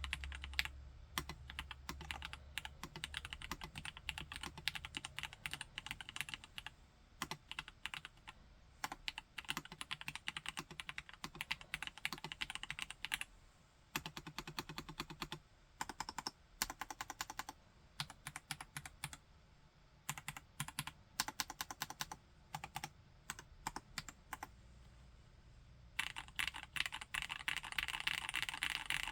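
Typing on a Vortex Model M SSK winkeyless mechanical keyboard with Gateron G Pro Brown tactile switches: runs of quick keystrokes broken by short pauses, with the fastest, densest run near the end.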